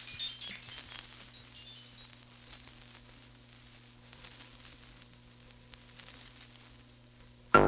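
The last notes of a music track die away, leaving a faint gap of record surface noise: soft crackle and hiss over a low steady hum. The next track starts loudly right at the end.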